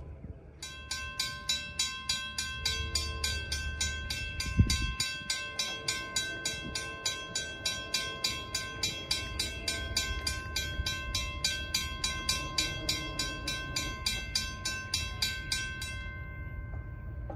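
A railroad crossing warning bell rings in rapid, even strokes as the crossing activates and its gate arms lower. It stops about a second before the end, once the gates are fully down. A single thump about four and a half seconds in is the loudest moment.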